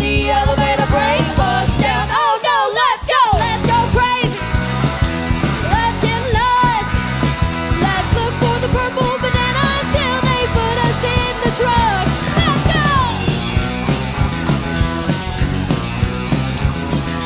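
Live rock band: female vocals singing over drum kit, bass and guitar. About two seconds in the band drops out for about a second under a sliding vocal line, then comes back in full; near the end the singing thins and steady drum strokes come to the front.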